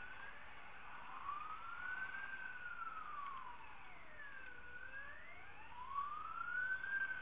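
Emergency vehicle siren wailing, its pitch rising and falling slowly, about one full sweep every five seconds.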